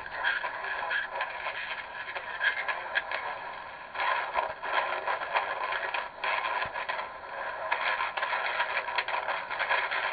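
Tecsun PL-380 portable radio's speaker playing weak, distant medium-wave AM reception of CFTR Toronto on 680 kHz. Hiss and crackling static swell and fade, with the station's audio barely coming through: a transatlantic signal at the edge of reception.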